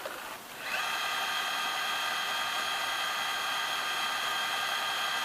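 Sony CCD-TR70 8mm camcorder's tape transport whirring steadily in fast forward, starting under a second in with a short rise in pitch. It winds the tape only slowly.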